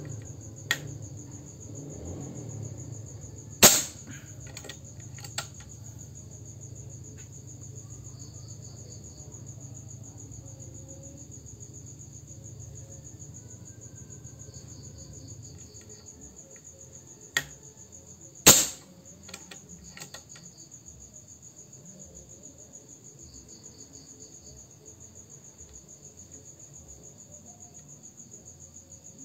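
Two shots from a suppressed Reskal air rifle firing JSB Monster pellets over a chronograph, about fifteen seconds apart, each with a lighter click shortly before it. Crickets chirp steadily throughout.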